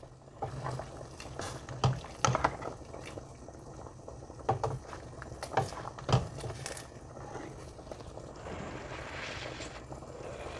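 A ladle stirring broth in a stainless steel stockpot: liquid sloshing, with a scattering of light knocks of the ladle against the pot.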